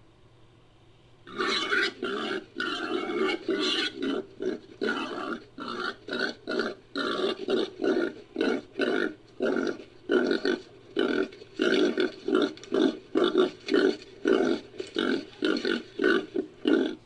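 Long run of deep, pig-like grunts from a wild boar recording, used as a sound effect for the extinct Anthracotherium. The grunts start about a second in, come in quick succession and settle to about two a second.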